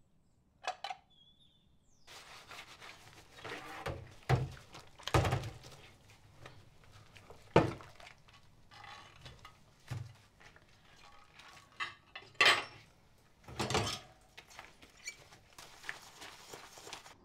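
Washing up by hand at a kitchen sink: crockery and plastic tubs clinking and knocking against the sink and draining rack, with several sharper knocks over a light splashing hiss. A single short sound is heard about a second in, before the washing-up starts.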